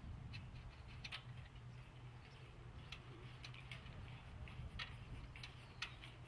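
Faint, irregular clicks and taps of metal solar-panel mounting hardware being handled and fitted on aluminium rails, over a low steady hum.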